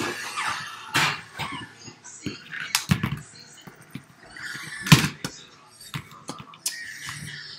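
Plastic toy dinosaurs knocked and tapped against a wooden floor, irregular sharp knocks with the loudest about five seconds in, and some faint vocal noises from a child in between.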